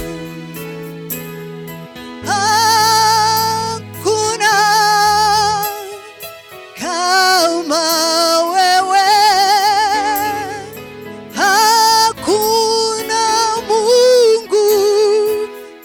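Swahili gospel worship song: a voice sings long phrases with a wavering vibrato and upward scoops into the notes, over a steady bass line, with short breaks between phrases.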